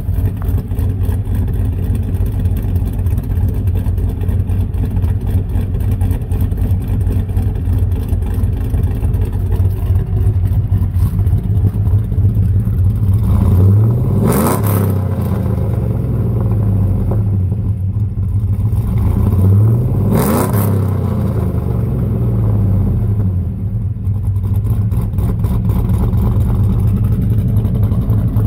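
Chevrolet Avalanche V8 with a Tick Performance stage 4 TorqueMAX truck cam, headers, X-pipe and dual Flowmaster-style mufflers, idling with a slight choppy lope. It is revved twice, about halfway through and again some six seconds later, each rev rising and falling quickly.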